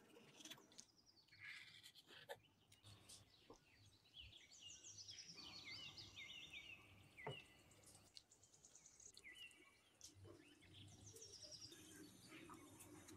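Near silence: faint chirping in the background, with a few soft taps and rustles of the cake being rolled on the cloth.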